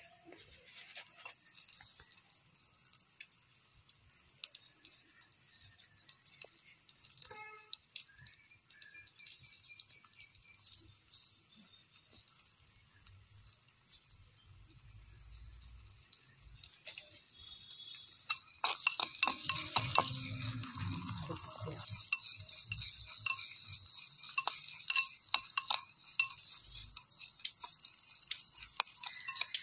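Onions and tomatoes sizzling in oil in a miniature clay pot, with a steel spoon scraping and clicking against the clay as they are stirred. The stirring and sizzle grow louder about two-thirds of the way through.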